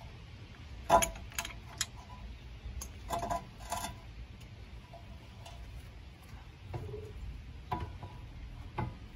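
Scattered metallic clinks and knocks from the rear brake caliper and a hand tool being handled at a Jeep Cherokee's rear wheel hub. The loudest clink comes about a second in, with a cluster of them around three to four seconds and a few more near the end.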